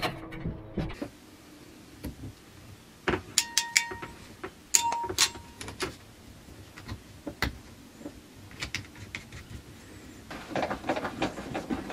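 Hands handling and fastening black electrical cable: scattered sharp clicks and knocks, with a quick run of small clicks near the end.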